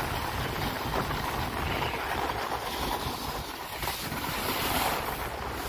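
Wind buffeting the microphone and skis sliding over snow during a downhill ski run, as a steady rushing noise.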